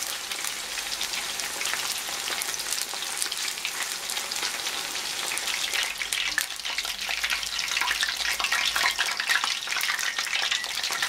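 Starch-coated mackerel pieces deep-frying in hot oil: a steady crackling sizzle that grows louder in the second half.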